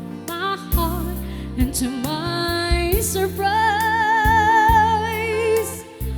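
Slow ballad music: a backing track with a steady bass line under a melody that slides between notes, then holds one long note with wide vibrato for about two seconds.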